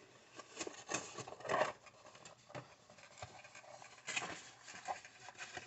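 Cardboard shipping box being opened by hand: faint, irregular scrapes and rustles of the cardboard lid and the paper and plastic packs inside, the loudest about a second and a half in.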